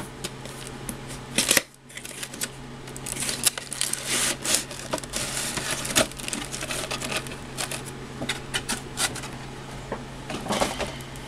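Cardboard model-kit box being opened and a clear plastic blister tray slid out of it: irregular rustling, scraping and clicking of cardboard and stiff plastic, with a sharper knock about a second and a half in.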